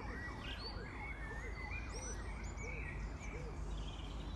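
A distant emergency-vehicle siren wailing up and down in pitch about three times a second, fading out a little over halfway through, over a steady low rumble.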